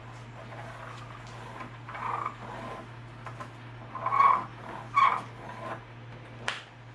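An animal's short whines, three of them about two, four and five seconds in, over a steady low hum, with a sharp click near the end.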